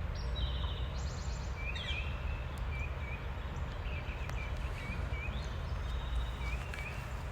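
Songbirds chirping, with a buzzy trill about a second in and short repeated chirps through the rest, over a steady low rumble.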